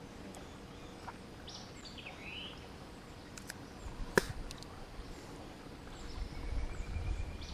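Quiet outdoor background with a few short bird chirps, a single sharp click a little past the middle, and a low rumble building near the end.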